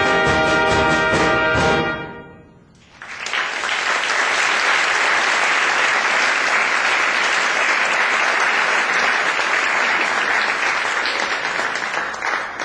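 A high school concert band, brass to the fore, playing the last notes of the piece, which stop about two seconds in. After a brief pause the audience applauds, steadily for about nine seconds.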